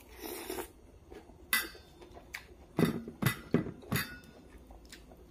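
A person eating by hand at a metal tray: a short suck or slurp as a bite goes into the mouth, then about five sharp clinks and knocks of tableware over the next few seconds.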